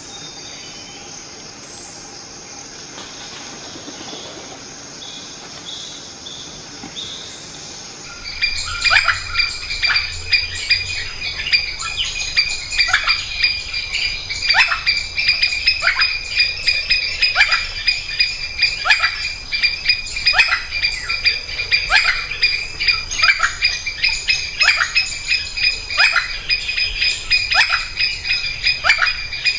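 Tropical forest ambience. A steady high insect drone comes in about eight seconds in, with short sharp bird calls repeating about once a second over it.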